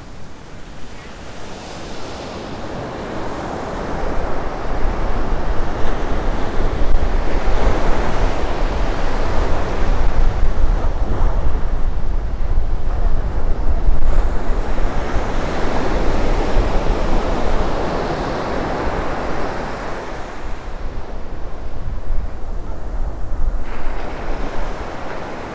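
Ocean surf: small waves breaking and washing up the sand in slow surges, rising and easing several times. Wind rumbles on the microphone through most of it.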